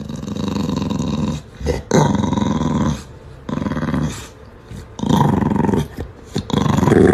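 English bulldog growling in a series of long, drawn-out grumbles, about five of them, each lasting a second or so with short pauses between, the last one the loudest.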